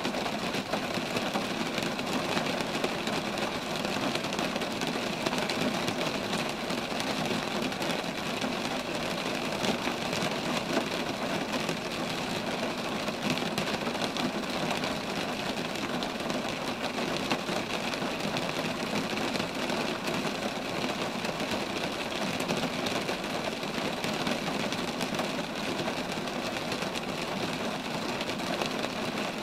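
Steady rain falling on roadside trees, a dense even patter of drops on leaves that does not change.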